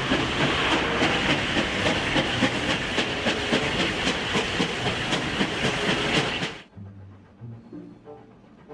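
Steam train running: a rhythmic chuffing and rail clatter over a steady hiss of steam, cutting off abruptly about six and a half seconds in.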